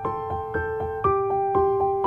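Background music: a piano-like keyboard plays an even run of notes, about four a second, over a melody line that steps downward.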